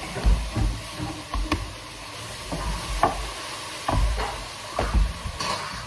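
A long wooden rolling pin rolling a large sheet of hand-made noodle dough on a wooden worktop: a run of dull thumps, about two a second, with clicks and rubbing as the dough is pushed back and forth.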